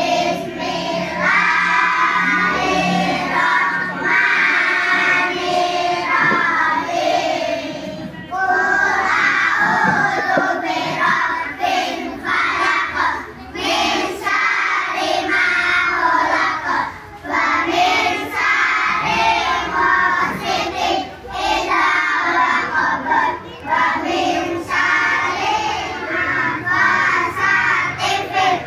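Young children singing a song together, amplified through a handheld microphone.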